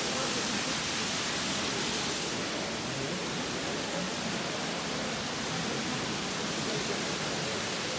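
Steady rushing hiss of a strong current moving through an ice cave.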